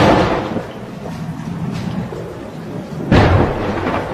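Two heavy artillery or rocket shell explosions, one right at the start and a second about three seconds later, each a sudden boom that dies away into a long rumble.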